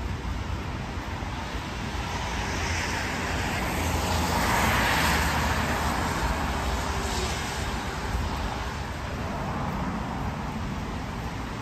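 A car driving past on a wet street: its tyre hiss swells to a peak about five seconds in and fades away, over a steady low rumble of city traffic.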